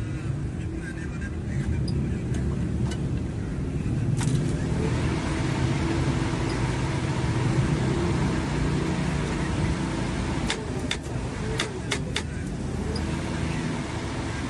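An old car's carburetted engine running steadily just after a carburettor adjustment. Several sharp clicks come through, one about four seconds in and a cluster near the end.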